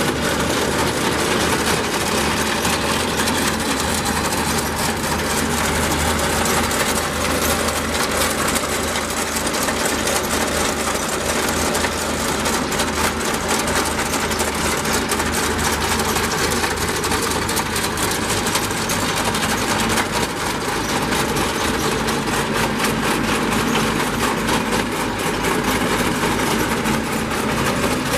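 Farm machinery running steadily: an engine at a constant speed with a fast, even mechanical clatter over it, as from a tractor running a Ransomes two-row potato harvester.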